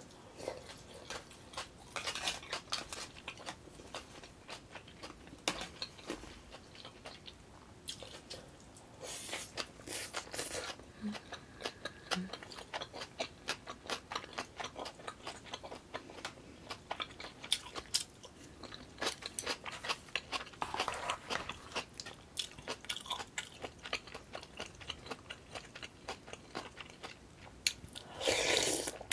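Close-miked eating sounds: wet chewing and smacking of the mouth, with several short slurps, the loudest near the end as a spoonful of yukgaejang (spicy beef soup) is taken.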